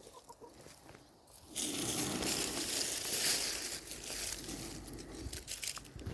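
Close rustling and crunching noise that starts suddenly about a second and a half in, runs for about three seconds, then eases off.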